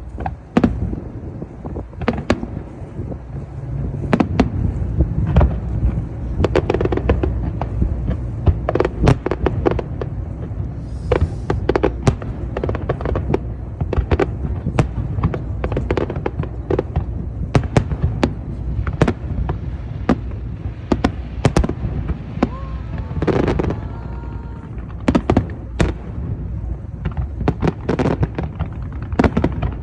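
Aerial fireworks bursting in rapid succession: dozens of sharp bangs and crackles, often several a second, over a continuous low rumble.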